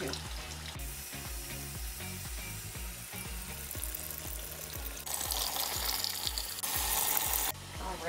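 Water streaming into the wash tub of a portable twin-tub washing machine, filling it for a rinse: a steady hiss that grows louder about five seconds in and cuts off shortly before the end. A steady low beat of background music runs underneath.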